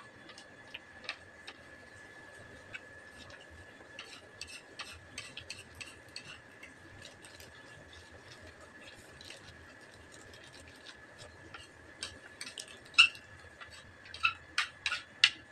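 Light clicks and taps of a metal spoon against a ceramic plate, with paper food wrapper handled in between, over a faint steady high tone. The clinks come closer together and sharper near the end.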